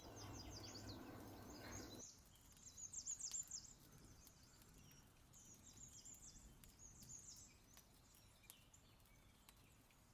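Faint chirping of small birds in short clusters of quick, falling chirps, about a second and a half in, around three seconds in, and again around six to seven seconds in. A faint low hum stops about two seconds in.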